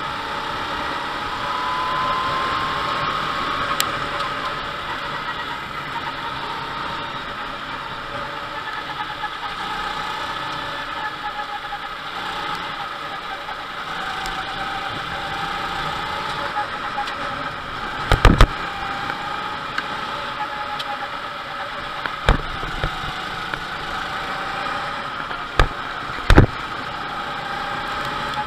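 Go-kart engine running under way, heard from the kart itself, its pitch rising and falling with the revs. In the second half come several sharp knocks, the loudest a double knock about two thirds in and another near the end.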